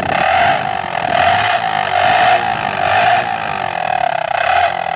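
Motorcycle exhaust blowing through a plastic vuvuzela-style horn pushed into the silencer, which sounds one steady horn note that swells and fades about once a second, with the engine's exhaust pulsing underneath.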